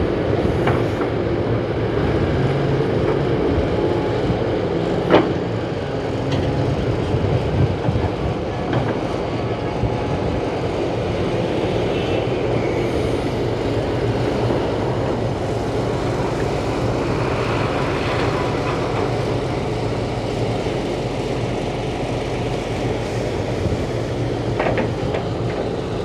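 Diesel engine of a Volvo crawler excavator running steadily, a continuous heavy rumble, with a few short knocks.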